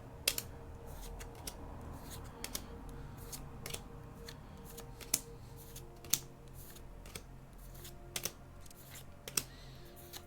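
Trading cards being handled, with irregular sharp clicks and snaps of the cards and booster-pack wrapper, over a faint steady hum.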